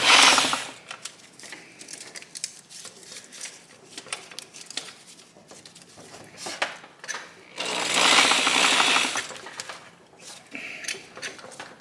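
Rapid mechanical clicking from a 1971 Honda SL125 engine's gearbox being turned over by hand through its gears. A short loud run of clicks at the start, scattered clicks after it, and a longer run of rapid clicks about eight seconds in.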